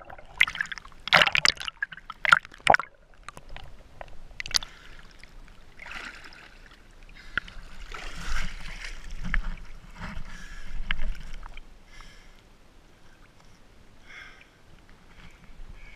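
Water splashing and sloshing against a GoPro camera as it dips in and out of the surface while a snorkeller swims. A few sharp splashes come in the first three seconds, then softer sloshing and gurgling that fades quieter near the end.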